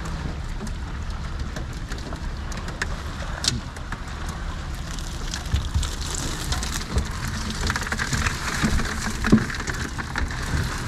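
A herring cast net hauled aboard a small boat: water dripping and splashing off the mesh, and herring flopping in it, making many small sharp slaps. It gets busier and louder about halfway through as the full net comes over the side, over a steady low rumble.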